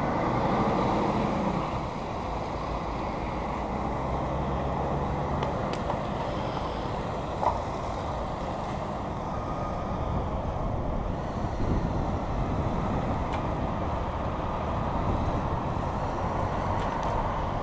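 Steady road and wind rumble on the microphone of a camera moving through traffic, with a lorry's engine faintly humming in the first few seconds. A single brief knock about seven and a half seconds in.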